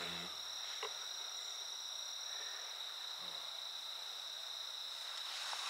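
Steady high-pitched chorus of night insects, two even continuous tones, with a faint low sound at the start and again about three seconds in.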